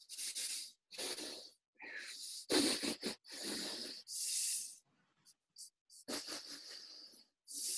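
A man's short breathy gasps and sniffs, about eight in a row, as he chokes up with emotion mid-sentence.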